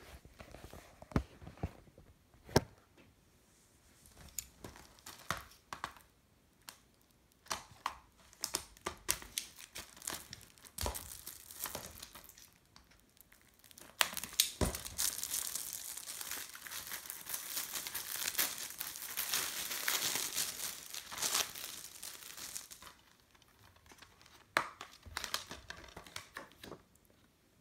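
Plastic shrink-wrap on a DVD case being slit with a box cutter and torn off. Scattered sharp clicks and taps give way, about halfway through, to some nine seconds of continuous crinkling and tearing plastic, followed by a few more clicks.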